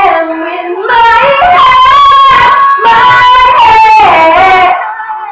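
Female voice singing loud, long held gospel notes without clear words, two sustained phrases, the second falling away near the end, sung along with a recording of the song.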